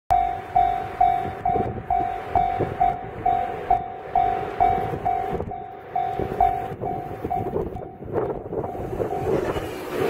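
Japanese level-crossing warning bell dinging in a steady rhythm of about two strikes a second. In the last two seconds an approaching electric train's rumble rises beneath it, and the bell fades out.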